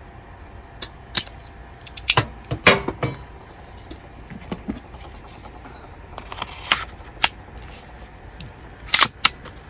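Irregular sharp clicks and clacks of hard parts being handled on a Krytac Maxim 9 gas blowback airsoft pistol, with a cluster of louder clacks two to three seconds in and a quick double click near the end.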